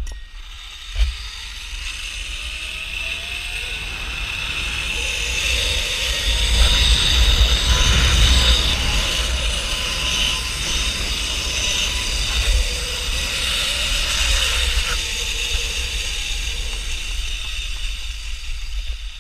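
Zip-line trolley pulleys running along the steel cable: a whirring hiss with a faint whine that builds over the first several seconds, holds, and eases off near the end as the rider slows into the platform. Wind rumbles on the microphone underneath.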